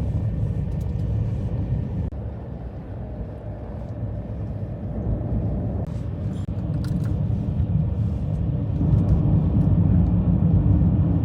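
Car driving on snowy roads: a steady low rumble of engine and tyre noise that gets louder about nine seconds in.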